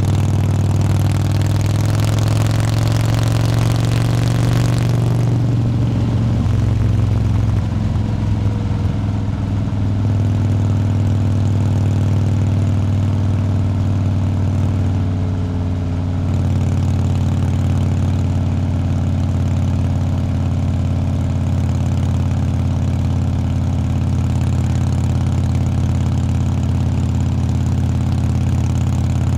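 Motorcycle engine running steadily at road speed, heard from a camera mounted on the bike. There is wind rush over it that drops away about five seconds in.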